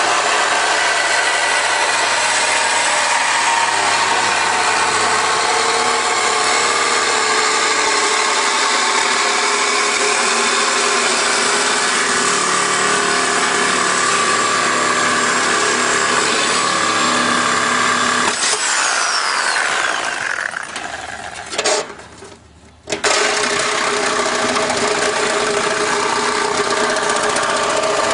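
Electric power tool running steadily while cutting into a hot water heater's steel casing. About 18 seconds in it is released and winds down with a falling whine, then starts again sharply about 23 seconds in.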